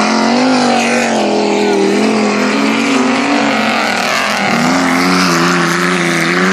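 Several stock car engines revving as the cars race past close by on a dirt track. The pitch rises and falls with throttle, and one engine dips and picks up again a little past the middle.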